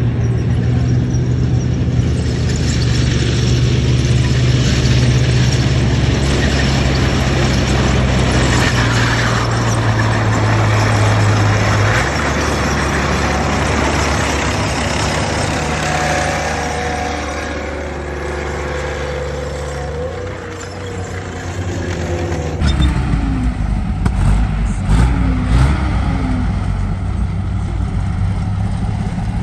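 Tank engines running as heavy tracked armoured vehicles drive past, a deep steady drone under a noisy rumble. The sound changes abruptly a few times.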